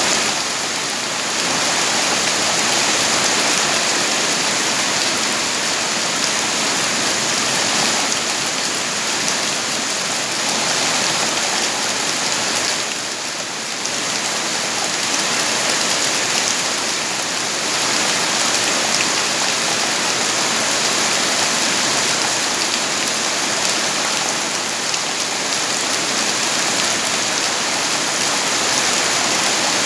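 Steady heavy rain falling and pattering on a surface, an even dense hiss with a brief lull about halfway through.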